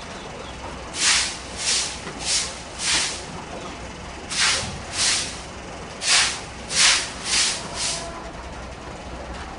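Short, loud bursts of hiss in three groups, four, then two, then four, spaced about half a second apart.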